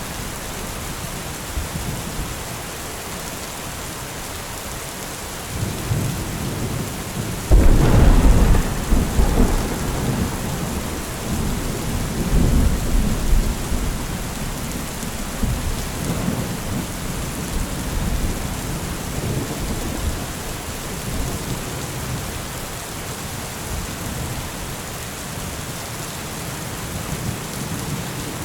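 Steady heavy rain with thunder. A sudden loud clap comes about a quarter of the way in and rolls into a low rumble lasting several seconds, with fainter rumbles after.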